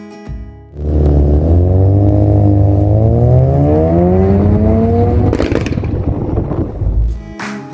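Car engine accelerating, its pitch climbing steadily for about four seconds, then a short rush of noise as the revs come off.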